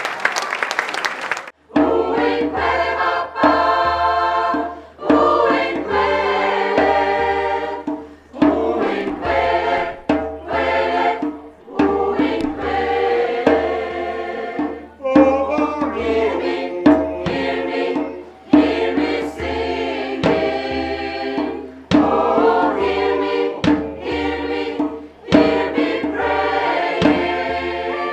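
Brief audience applause that cuts off about a second and a half in, then a mixed choir singing a song in several parts, in phrases with short breaths between them, over a low bass accompaniment.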